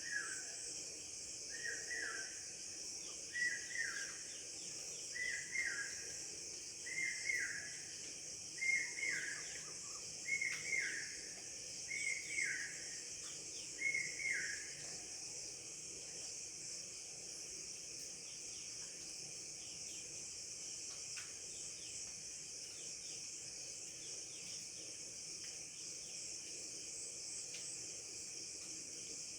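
Insects chirring steadily as a high background, while a bird repeats a short falling two-note call about every one and a half seconds, nine times, then falls silent about halfway through.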